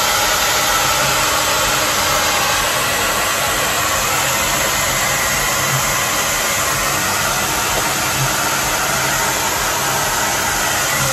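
Handheld hair dryer running steadily, a constant rush of air, blowing on a wet dog's fur.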